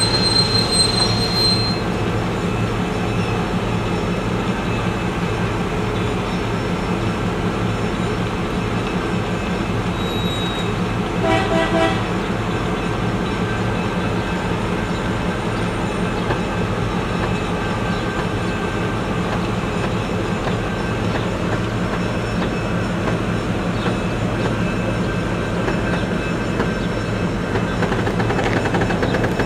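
Streamlined stainless-steel passenger train cars rolling slowly in a back-up move, over a steady low drone. The wheels squeal briefly at the start. A short horn toot sounds about eleven seconds in.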